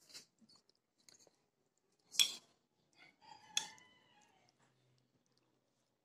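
Metal fork clinking and scraping against a ceramic plate while mixing flaked tuna, with light ticks and two sharper clinks about two and three and a half seconds in. The second clink rings briefly.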